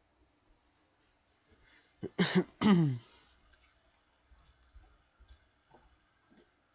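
A person makes two short vocal sounds in quick succession, the second sliding down in pitch, like a cough or throat noise. A few faint clicks follow.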